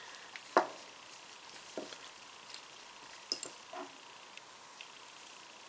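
A few light clicks and taps as small greasy ratchet parts and a snap ring are handled and fitted by hand, the sharpest about half a second in and a close pair past the three-second mark.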